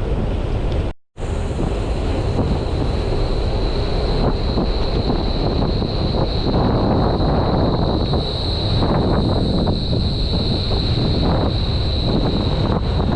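Wind buffeting the microphone during a ride on a sealed road, with road and vehicle noise underneath and a steady high whine. The sound cuts out for a split second about a second in.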